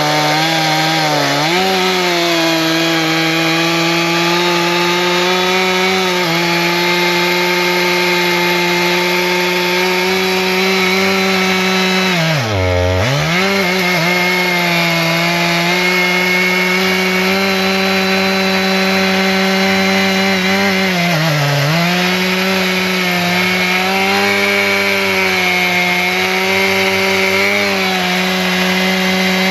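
Stihl MS 461 two-stroke chainsaw running at high revs while cutting through logs. Its pitch dips briefly a few times, most sharply about halfway through, then picks straight back up.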